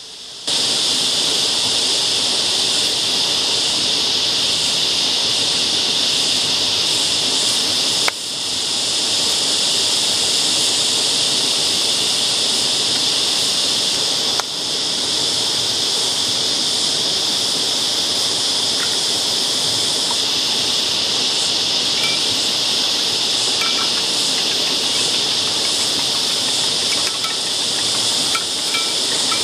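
Cicada chorus: a loud, steady, high-pitched drone, dipping briefly twice.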